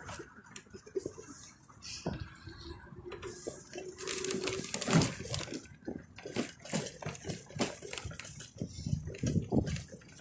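Footsteps crunching on a gravel and dirt path, about two steps a second. A faint steady hum sounds for a couple of seconds early in the steps.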